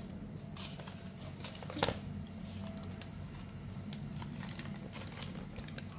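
Aluminium foil crinkling and crackling in scattered short clicks as it is peeled open from a baked fish, the sharpest crackle a little under two seconds in, over a steady low hum.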